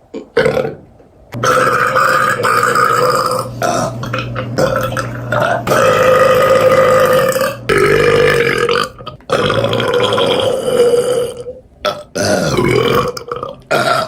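A woman letting out several long, deep burps one after another, the longest lasting about six seconds.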